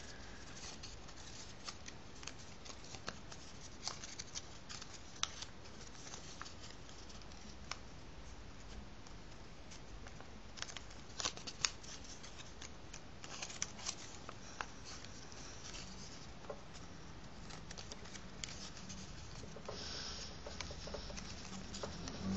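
Paper strip being folded back and forth along its crease lines, each fold pre-creased in both directions: faint, irregular crinkles and crackles.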